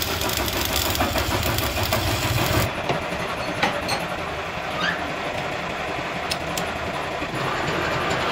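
Arc welding crackle over a steady low machine hum, cutting off abruptly about a third of the way in. Then a few sharp metal clinks as the workpiece is clamped in a lathe chuck, and the lathe starting up near the end with a steady hum.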